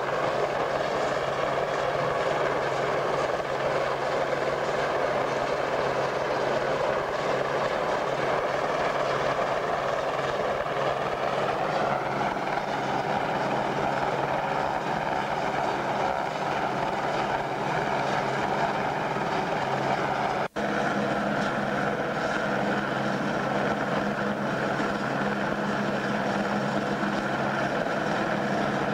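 Helicopter hovering with an underslung load, its rotor and turbine running in a steady, continuous drone. The sound breaks off for an instant about two-thirds of the way through.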